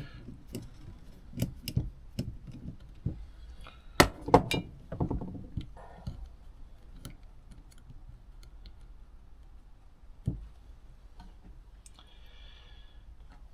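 Light metallic clicks and taps of hand tools and small parts being handled on a PH61A motorcycle carburettor, with a cluster of sharper knocks about four seconds in, then fainter scattered ticks.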